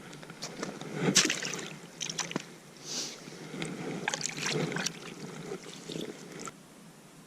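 Water sloshing and splashing in an ice-fishing hole, mixed with irregular knocks and clicks from handling. The loudest burst comes about a second in, and the sounds stop about six and a half seconds in.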